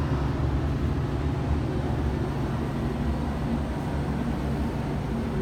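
Steady low hum and rumble inside a moving Ferris wheel gondola.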